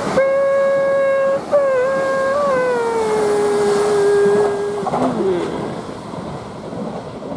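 Horn of a passing SBB Giruno electric train: one steady tone in long blasts, the last one sliding lower in pitch as the train goes by. After that, the train's running rumble.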